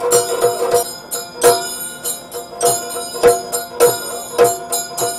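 Yakshagana ensemble music: sharp, ringing metallic percussion strikes in an uneven rhythm over a steady drone.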